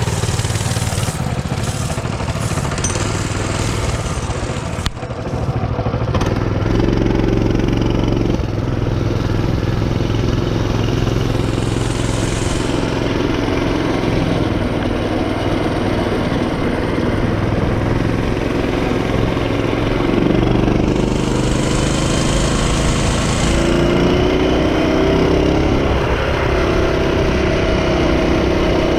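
Mini bike's small single-cylinder four-stroke engine running while riding, its pitch rising and falling with the throttle.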